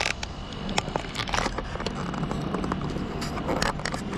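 Mini split heat pump outdoor unit running with a steady low hum, under irregular clicks and scrapes.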